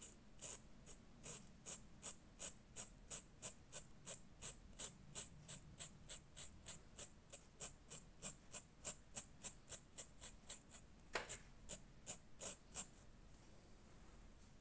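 Textile marker's felt tip rubbing on printed fabric in short, quick colouring strokes, about three a second. There is one longer stroke about 11 seconds in, and the strokes stop near the end.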